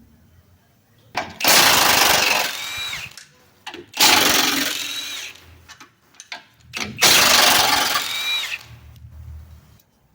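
Impact wrench run in three bursts of about a second and a half each on the car's suspension bolts, each burst ending with the motor's whine winding down.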